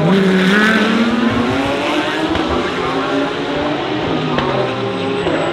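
Race car engines passing at full throttle, their pitch climbing as they accelerate and dropping again about four seconds in.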